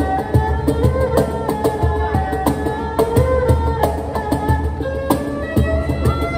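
Improvised erhu and cajon duet: the erhu bows a melody of held and sliding notes over a steady cajon beat of low bass thumps and sharp slaps.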